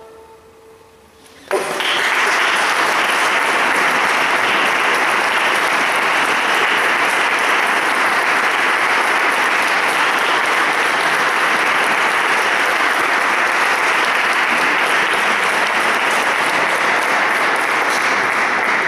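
The last flute note fades away in a quiet, reverberant tail, then about a second and a half in, an audience starts applauding: dense, steady clapping.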